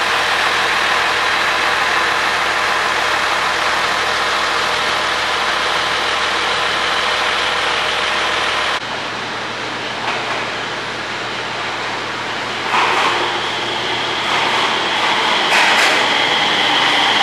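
HB-E300 hybrid railcar's diesel engine-generator running steadily at idle while the train stands at the platform. After a sudden change about nine seconds in, a 701 series electric train pulls into the station, with high-pitched tones swelling in twice near the end.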